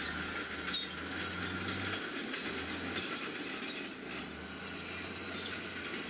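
Crawler bulldozers working: engines running with the metallic clank and squeal of steel tracks, over a low rumble that comes and goes every second or two.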